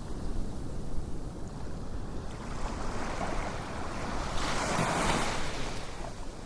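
Ocean surf: a wave washes in, swelling to its loudest about five seconds in and then easing off, over a low rumble of wind on the microphone.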